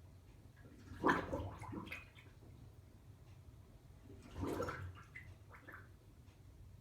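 Watery bubbling and gurgling, coming in two short bursts of about a second each, over a low steady hum; an unexplained noise that keeps recurring.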